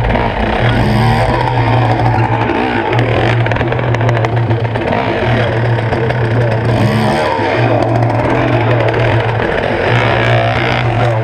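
Dirt bike engine revving up and dropping back again and again as the rider lifts the front wheel into wheelies.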